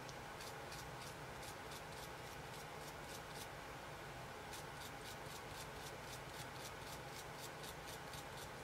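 Small wire brush scrubbing a chrome guitar tuning machine in quick back-and-forth strokes, about four or five a second, with a short pause about halfway through.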